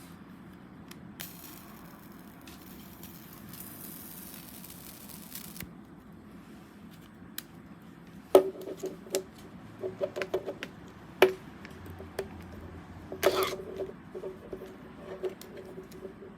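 Sharp clicks and knocks of hard objects being handled, some with a short hollow ring, scattered irregularly through the second half, after a faint hiss in the first few seconds.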